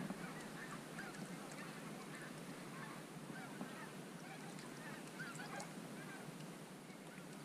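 A distant flock of wild geese honking, many short faint calls overlapping one another.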